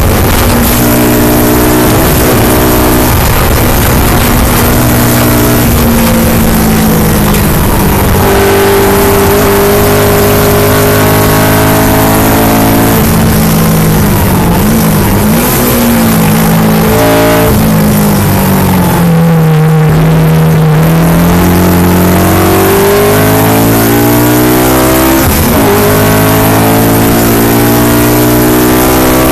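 A Honda Civic Si race car's four-cylinder engine, heard loud from inside the car, running at high revs on a fast lap. The pitch climbs through the gears with drops at each change, dips for corners, holds low and steady for about two seconds around two-thirds of the way through, then climbs again in steps near the end.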